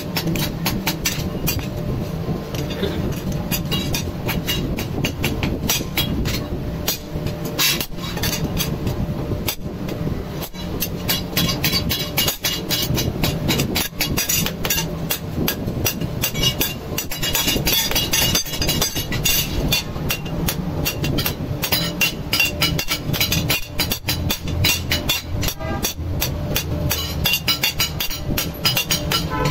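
Hand hammer striking a leaf-spring steel cleaver blade on an anvil block, rapid repeated metallic blows several times a second, over a steady low hum.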